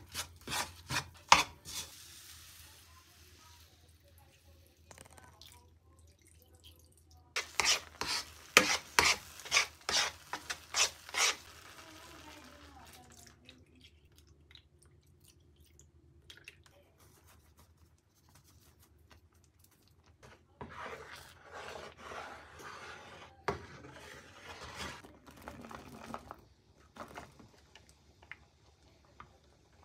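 Spatula stirring and scraping in a nonstick frying pan through a flour-and-butter roux and a milk white sauce, in bursts with quiet gaps: a run of sharp knocks about two a second roughly a quarter of the way in, then a longer stretch of softer scraping and stirring about two-thirds of the way in.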